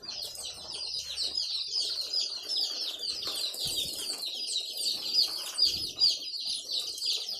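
A brood of young Australorp chicks peeping constantly, many short falling peeps overlapping into a steady chorus.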